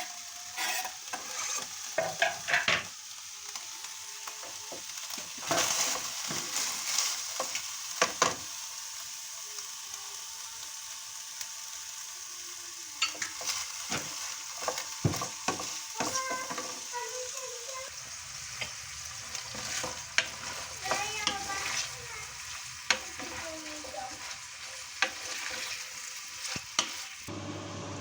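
Food sizzling in hot fat in a pan while it is stirred, with the utensil clicking against the pan now and then. The sizzle gives way to a low hum shortly before the end.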